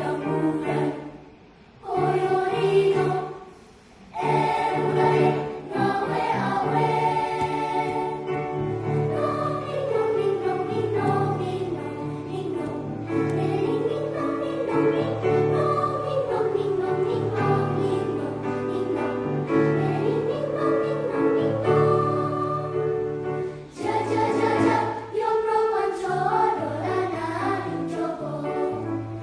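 A choir singing in several voice parts over a sustained low line. The opening phrases are separated by two short breaks, and the singing then runs on without stopping.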